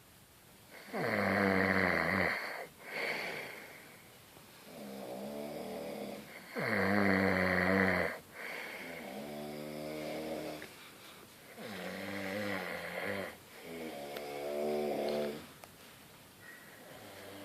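A person snoring in repeated breaths. Two loud, harsh snores come near the start and about six seconds in, with softer, pitched snores between and after them. The uploader calls the snoring not normal.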